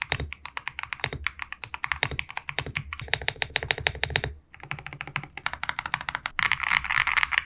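Mechanical gaming keyboard being typed on fast, a quick stream of sharp key clicks. It breaks off briefly a little after the middle, then rises to a dense, louder flurry of keypresses near the end.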